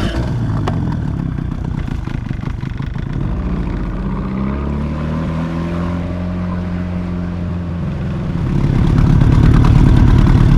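Outboard motor of an inflatable boat running under way. It comes up sharply right at the start, rises in pitch as it is throttled up about four to six seconds in, and grows louder again near the end.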